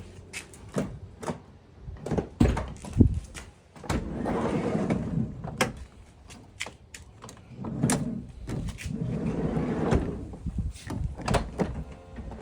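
Toyota Estima's sliding door being worked by its new handle: sharp latch and handle clicks, and twice the door runs along its track for a second or two, about 4 and 8 seconds in.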